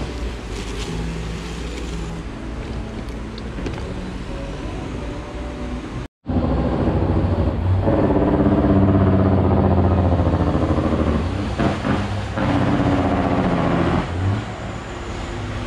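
Motor vehicle engine running nearby: a low, steady drone that swells loudest a couple of seconds after a brief drop to silence about six seconds in, and again near the end.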